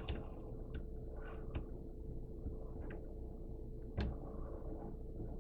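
Faint clicks and taps of metal carbine parts being handled as the action screws are started into place by hand, with one sharper click about four seconds in. A faint steady hum sits underneath.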